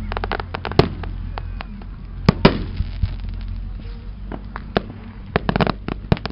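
Fireworks going off: a rapid, uneven series of bangs and pops, with louder reports about one second and two and a half seconds in, and a dense burst of crackling near the end.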